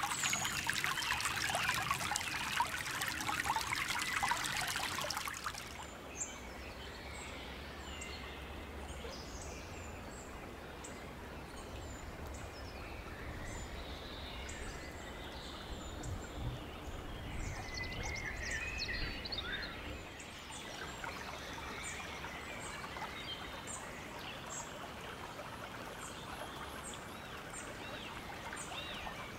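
Shallow gravel-bedded woodland stream trickling, loud and close. About five seconds in it drops away sharply to fainter running water, and woodland birds can be heard singing and calling throughout.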